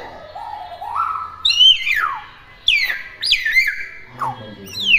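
Hill myna whistling and calling: a low rising warble, then a run of loud whistles that each climb briefly and fall in pitch.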